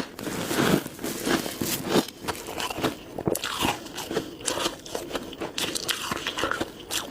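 A person biting and chewing crunchy ice: a quick, irregular run of crunches and cracks.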